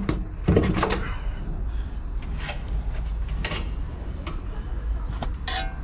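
An RV's pull-out outdoor gas stove sliding out of its compartment on metal drawer rails. It clatters about half a second in, followed by a few sharp clicks and knocks as it is handled.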